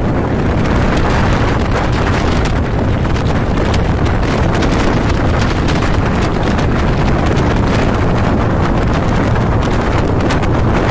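Wind buffeting the microphone over the steady drone of a speeding river passenger launch's engine and rushing water.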